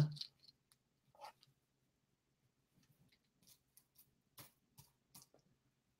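Faint scattered clicks and light rustles of a necklace and its packaging being handled, most of them coming after the halfway point.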